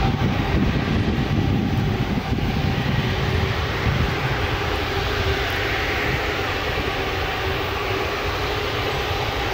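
Airbus A380's four turbofan engines running at taxi power: a steady jet whine over a broad rush of engine noise, with the low rumble heavier in the first few seconds.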